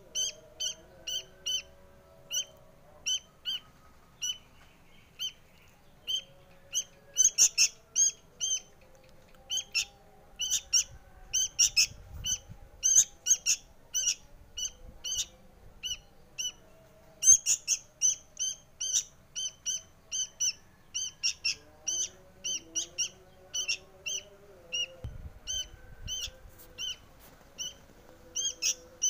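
Sooty-headed bulbul (kutilang) fledgling begging to be fed: short, sharp, high calls repeated over and over, about two or three a second, with a few brief pauses.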